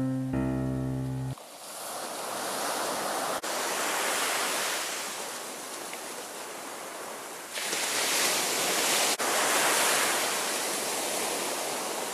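A short run of instrumental background music cuts off about a second in, giving way to sea surf breaking and washing up on a sandy beach, a steady rushing that swells twice as waves come in.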